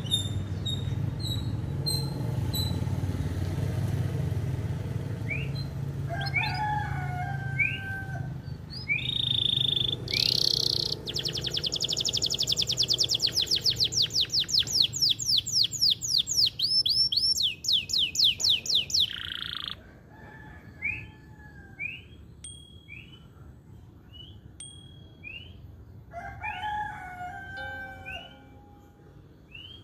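Male canary singing: short rising chirps and whistled notes, then a long fast trill of rapidly repeated rising notes lasting about eight seconds in the middle, then scattered short chirps again. A low rumble sits under the first several seconds.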